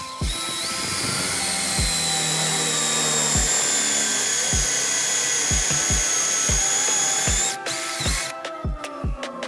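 Electric drill running at speed with a steady high whine for about seven and a half seconds, then stopping abruptly. Background music with a steady beat plays throughout.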